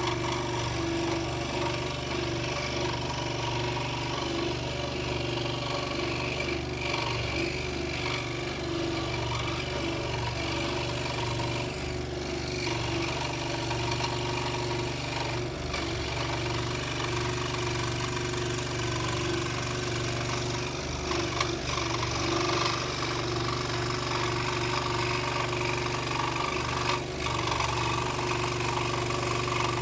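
Scroll saw running steadily, its reciprocating blade cutting through the workpiece.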